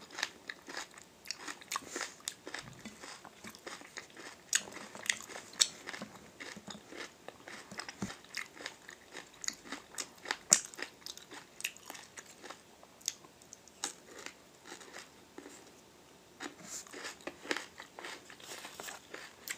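Close mouth sounds of someone chewing grilled wild onion leeks: a stream of irregular wet clicks and small crunches.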